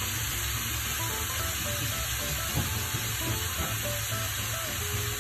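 Minced beef sizzling steadily as it browns in a non-stick pan, frying in its own fat with no oil added. Faint background music with a simple melody plays along.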